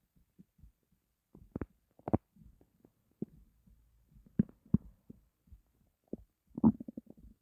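Hungry empty stomach growling: a string of short, irregular gurgles and pops, the loudest around two seconds in, twice past four seconds, and a bigger cluster near the end.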